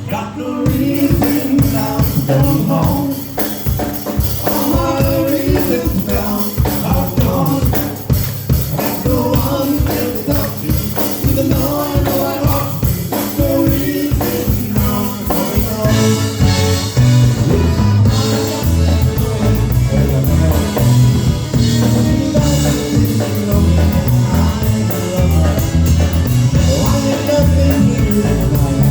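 Live polka band playing a polka, with a drum kit keeping a steady beat under the melody.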